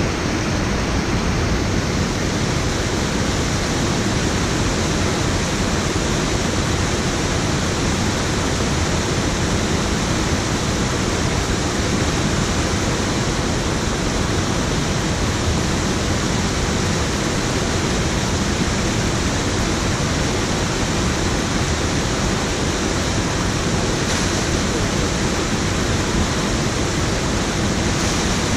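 Water pouring over a low weir into a pool: a steady, even rush.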